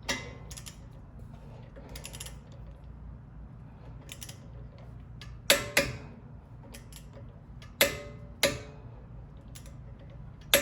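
Metal hand tools clicking and clinking as a brake caliper bolt is tightened to spec with a socket-drive torque wrench: scattered sharp clicks, some in quick pairs with a brief metallic ring, about five seconds in and again near eight seconds.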